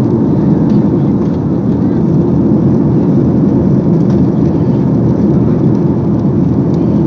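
Steady roar of a Boeing 737-800's CFM56 turbofan engines and the rushing airflow, heard inside the passenger cabin during the climb after takeoff.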